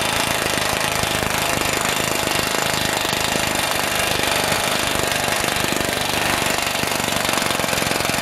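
Pneumatic impact wrench hammering steadily on a sacrificial lug nut, pulling a new lug stud through a truck's front wheel hub until it seats.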